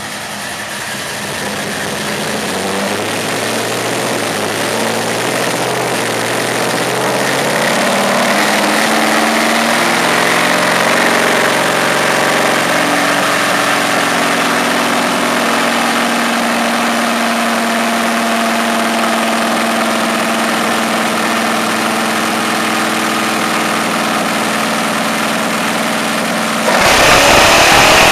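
A truck's 383 cubic-inch V8 with a flat tappet cam running on a dyno. The revs climb slowly for about fifteen seconds, hold steady, then a sudden louder rush comes near the end.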